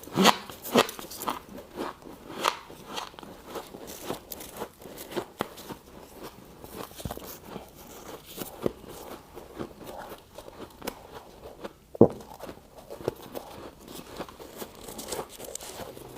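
Close-miked crunching of freezer frost being bitten and chewed: several loud crunches in the first couple of seconds, then a long run of quieter crunching, with one sharp crack about twelve seconds in.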